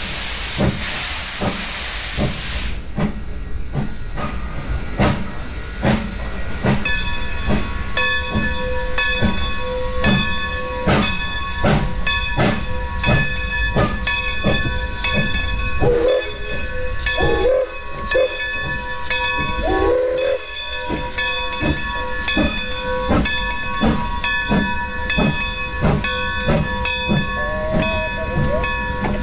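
1924 Baldwin steam locomotive blowing off a loud hiss of steam that cuts off about three seconds in, then chuffing from its stack at a steady beat of about one and a half exhausts a second, with a few short gliding squeals in the middle.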